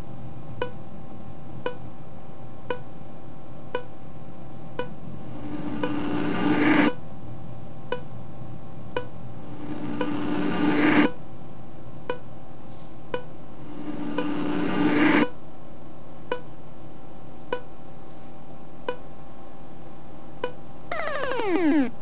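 Instrumental stretch of a Vocaloid song with no singing. A steady held drone carries a tick about once a second, three swells build and cut off sharply about four seconds apart, and a cluster of falling pitch sweeps comes just before the end.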